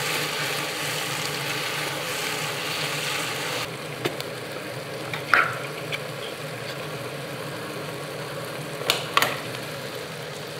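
Chopped carrot, celery, garlic and bell pepper frying in olive oil in a pan, a steady sizzle that turns softer a few seconds in. A utensil knocks against the pan a few times, twice in quick succession near the end.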